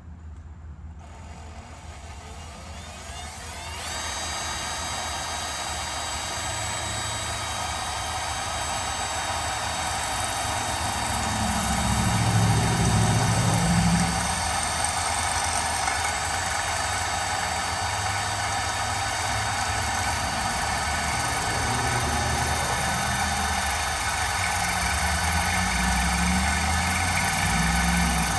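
Power drill boring a pre-drill hole through a handrail connector and the post behind it. The motor whine rises over the first few seconds, then runs steadily under load, with heavier rumbling bursts about twelve seconds in and near the end.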